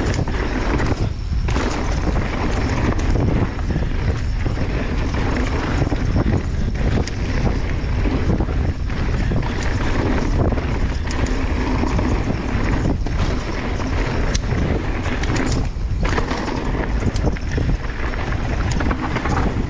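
Mountain bike descending a rocky trail at speed: wind rushing over the microphone, with tyres, chain and frame rattling over rocks and many short knocks and clatters.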